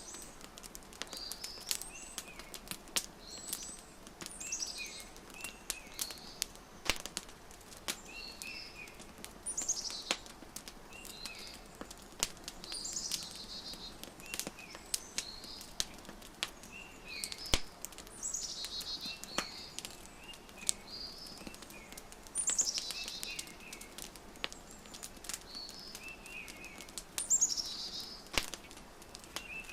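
Wood fire crackling with scattered sharp pops, layered with a songbird singing a repeated phrase of short chirps and a high falling trill about every four to five seconds.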